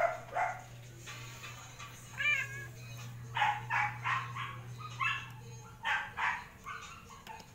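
Cats meowing at feeding time, a string of short, repeated meows with one longer wavering call, over a steady low electrical hum.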